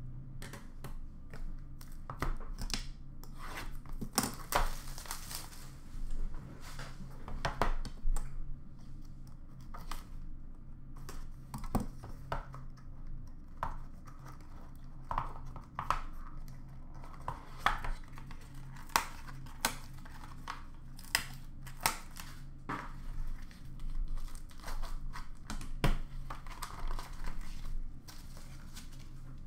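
Trading cards in plastic sleeves and rigid toploaders, and a cardboard card box, being handled and sorted: scattered clicks, taps and crinkling of plastic and card throughout, over a steady low hum.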